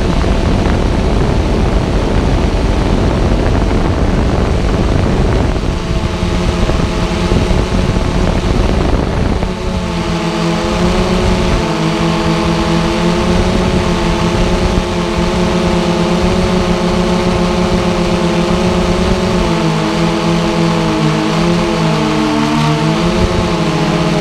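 Xiro Explorer G quadcopter's electric motors and propellers humming in flight, heard from on board. For the first ten seconds or so a rough rushing noise covers it. After that it settles into several steady tones that drift up and down together as the motor speeds change.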